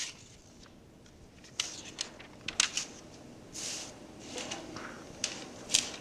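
A few faint, short rustles and clicks scattered over a steady hiss in a small room.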